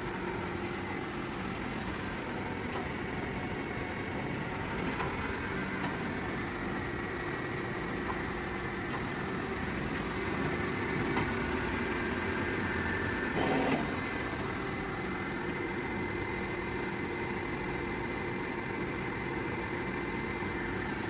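Clausing SUP6BVSCNC CNC bed mill running: a steady mechanical hum with a steady whine over it, and a brief louder noise about thirteen seconds in.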